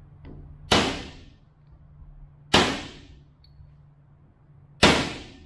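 Three hammer blows on a steel punch, staking a stretched tone ring onto a differential carrier so it grips tightly. Each strike is a sharp metallic clang that rings out for most of a second, the blows about two seconds apart.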